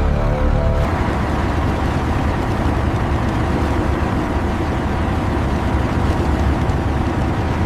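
A motor vehicle engine running steadily, a dense low rumble without pauses, taking over from music about a second in.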